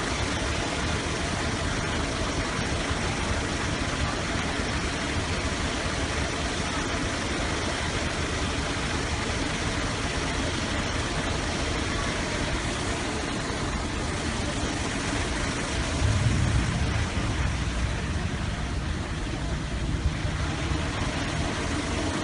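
A vehicle engine idling under a steady rushing noise, with a louder low rumble about sixteen seconds in.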